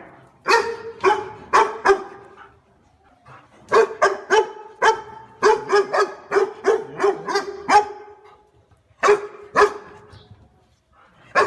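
Dog barking repeatedly in short, sharp barks: a few at first, then a fast run of a dozen or more, then a couple more near the end.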